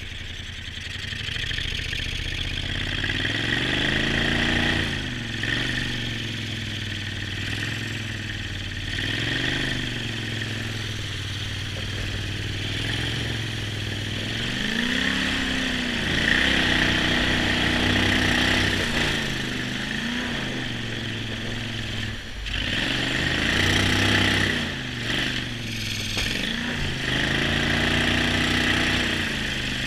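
A jon boat's motor running under way, its pitch rising and falling several times as the throttle is worked, over a steady hiss.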